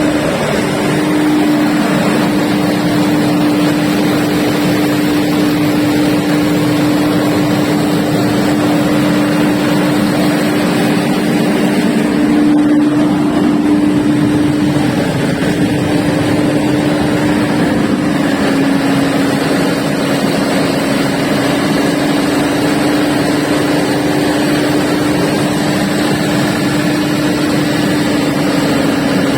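1400 kVA Perkins diesel generator set running steadily, with a strong even hum that dips slightly in pitch about 18 seconds in.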